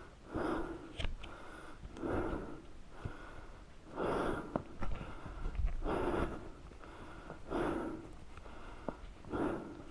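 A man breathing hard, one heavy breath about every two seconds: he is out of breath after lifting his fallen motorcycle several times.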